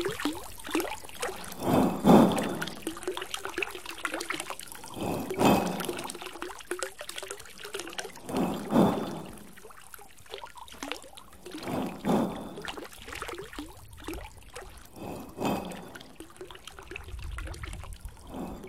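Water trickling and pouring, with a louder gush about every three seconds.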